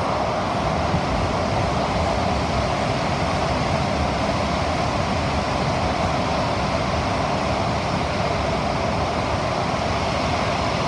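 SMRT CT251 metro train running between stations, heard from inside the passenger cabin: a steady rumble of wheels and running gear with an even hiss, holding a constant speed.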